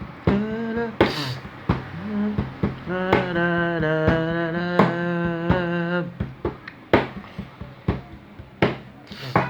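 Instrumental break in a Brazilian gospel worship song, with a steady drum beat. A wordless melodic phrase comes briefly near the start, and a single note is held with vibrato for about three seconds in the middle.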